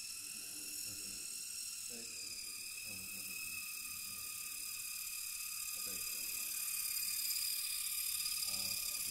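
Small electric motor and propeller of an indoor F3P aerobatic model plane (Supertrino Mark II) in flight, a steady high whine that shifts slightly in pitch with the throttle and grows louder as the plane passes close, near the end.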